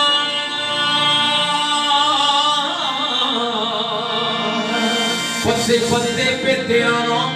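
Male voice singing long, held, ornamented notes in a devotional qawwali style over instrumental accompaniment. A fuller, lower accompaniment comes in about five and a half seconds in.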